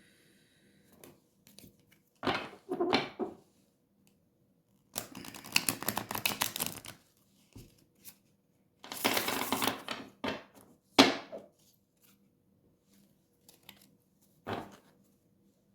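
A deck of tarot cards being shuffled by hand: two bursts of quick riffling clatter, with single card taps and snaps between them.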